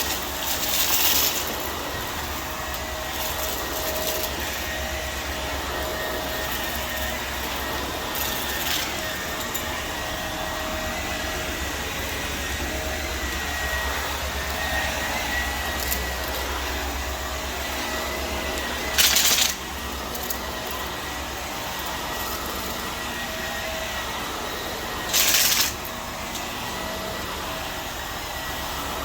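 Vacuum cleaner running steadily with a constant whine. Two short, loud hissing surges come through, one about two-thirds of the way in and another a few seconds later.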